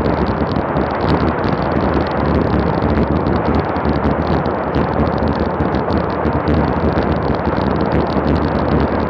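Wind buffeting the microphone of a bike-mounted Garmin VIRB action camera on a road-bike descent at about 38–39 mph: a loud, steady, fluttering rush.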